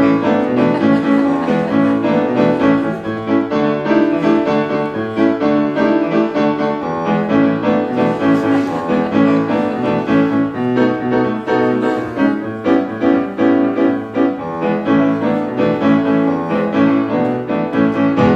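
Piano playing a continuous stream of quick notes and chords, which stops suddenly at the end.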